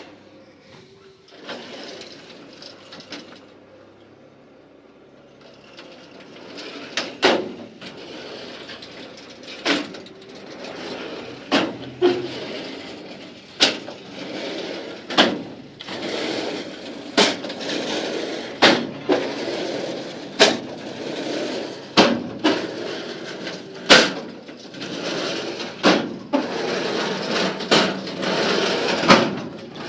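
Steel drawers of a Stanley Vidmar tool cabinet being pulled out and pushed shut one after another: a rolling, sliding noise on the drawer runners, ending in a sharp metal clack each time a drawer hits its stop, roughly every one and a half to two seconds after a quiet start.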